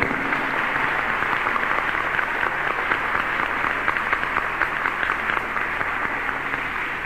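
An audience applauding, many hands clapping together in a steady, dense patter.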